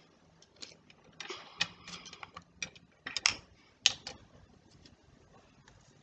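Small plastic acrylic paint bottles clicking and knocking together as they are picked through and one is taken up: a quick run of light clicks with two sharper knocks a little past the middle.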